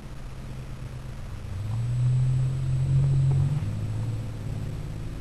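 Low steady rumbling hum that swells about one and a half seconds in and falls back after about three and a half seconds.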